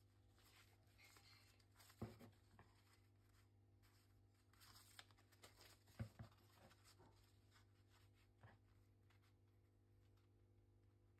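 Near silence with faint paper handling: sheets of paper rustling and sliding on a desk, with a few soft knocks, the clearest about two and six seconds in, over a low steady hum.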